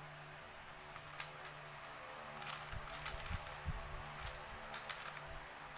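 Plastic speedcube being turned by hand: quick clicking and clacking of the layers in short flurries, over a faint steady hum.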